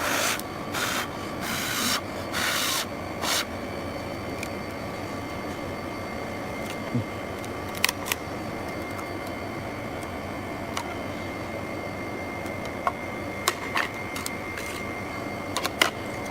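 LCD freezing separator machine running with a steady mechanical hum carrying several fixed tones. Five short scraping hisses come in the first few seconds, and scattered light clicks follow later.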